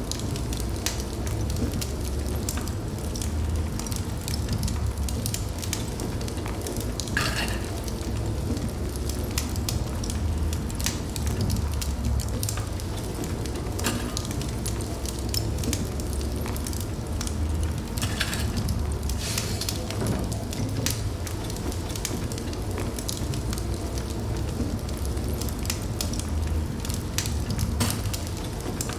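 Wood fire burning in a fireplace: a steady low rumble of flames with frequent irregular pops and crackles, and a few short hisses about 7, 18 and 20 seconds in.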